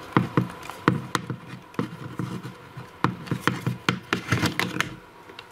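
A mains plug being pulled out of a plastic power strip and its cable handled: a string of irregular small clicks, knocks and rubs, unevenly spaced.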